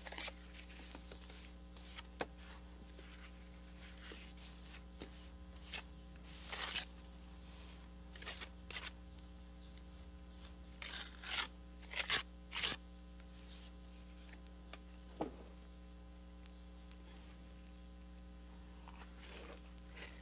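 A steel trowel scraping wet mortar onto the end of a brick as it is buttered for laying. The strokes are short and irregularly spaced, busiest in the middle.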